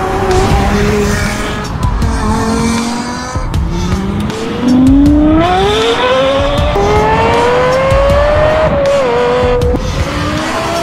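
Sports-car engine sound effect revving up, its pitch climbing over several seconds and dropping back at a gear change midway and again near the end, with some tyre squeal, over background music.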